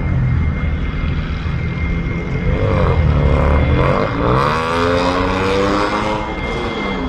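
Aircraft engines running loud as an aircraft passes close by, with a steady high whine; the engine tone sweeps in pitch about halfway through.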